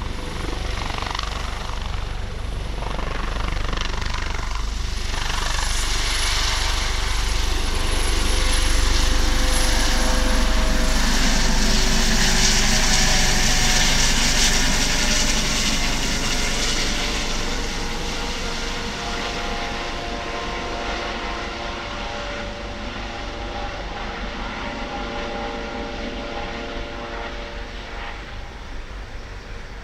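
Airbus Helicopters AS365 Dauphin twin-turbine helicopter lifting off and climbing away: rotor noise with a steady whine. It swells to its loudest as the helicopter passes close, about halfway through, then fades as it flies off.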